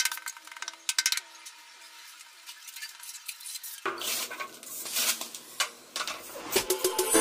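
Clinks, taps and scrapes of hand tiling work on glazed ceramic wall tiles: a few sharp clicks near the start, then from about four seconds in a busier clatter and scraping as an aluminium straightedge is set against the tiles.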